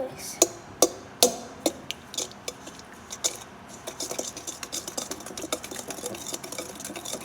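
A few sharp taps spaced under half a second apart, then, from about four seconds in, a fast run of light clicking.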